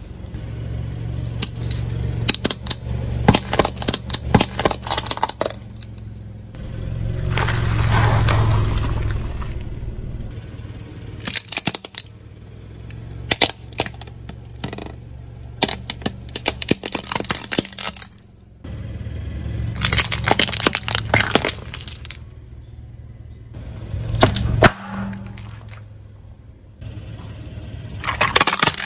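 Car tyres rolling over and crushing brittle objects: clusters of sharp cracks and snaps over the low hum of the car's engine.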